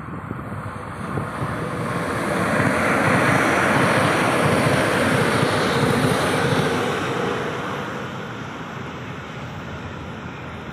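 KTM electric multiple-unit passenger train passing close below, its wheels running on the rails swelling to a peak a few seconds in and then fading as it runs away.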